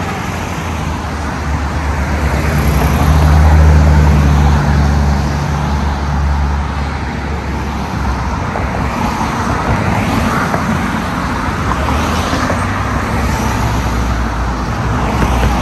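Car traffic on a city street. A vehicle's engine hum swells loudest about three to four seconds in, then fades into steady road noise.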